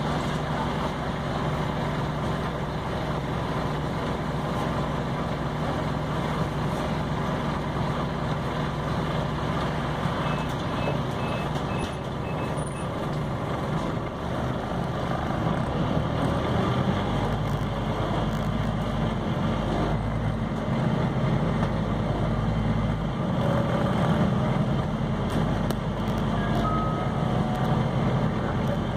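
Scania OmniCity CN270UB city bus running in service, heard from aboard: steady engine and road noise, with the engine's low drone growing heavier from about seventeen seconds in. A short run of five high beeps comes about ten seconds in.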